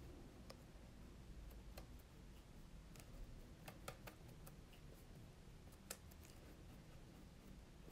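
Near silence broken by a handful of faint, scattered clicks and scratches of a paintbrush working oil paint onto canvas.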